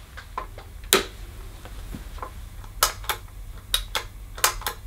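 Sharp clicks from the Kirby Classic III vacuum's on/off switch being worked, one about a second in and a quick run of them in the second half. The motor does not start: the machine is dead, though its fuse is good.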